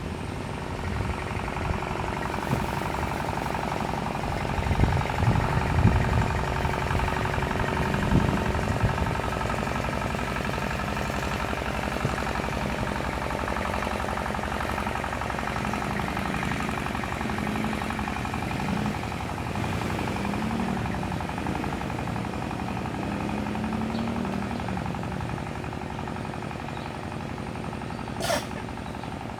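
Small fishing boat's engine running with a rapid knocking beat as the boat passes on the river, loudest a few seconds in. A brief sharp sound comes near the end.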